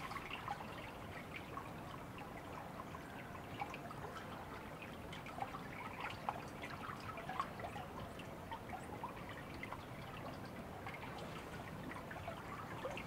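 Metal spoon stirring a large stockpot of apple juice and cider: faint liquid swishing and trickling with many small scattered ticks, as brown sugar is stirred in to dissolve.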